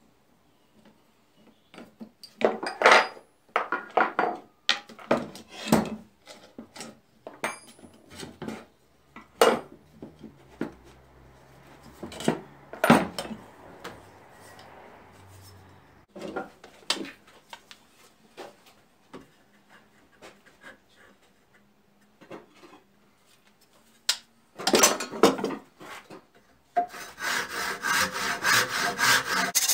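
Scattered clanks and knocks of a spanner and metal arm pieces being handled on a wooden workbench. Near the end, a hand saw starts cutting a strip of wood held in a vise, with steady back-and-forth strokes.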